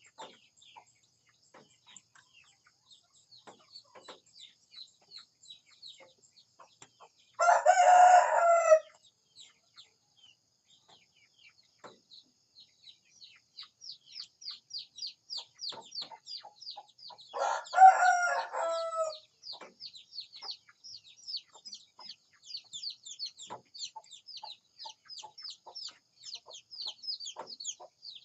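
Rooster crowing twice, about ten seconds apart, each crow lasting about a second and a half. Behind it runs a constant patter of fast, high chirps, several a second, thickening from the middle on.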